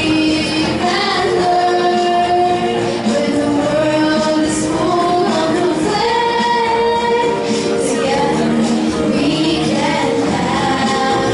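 A group of children singing a song together with instrumental accompaniment, the voices holding long sung notes.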